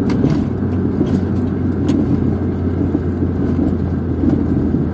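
Car cabin noise while driving on a wet road: a steady low drone of engine and tyres, with a few faint ticks.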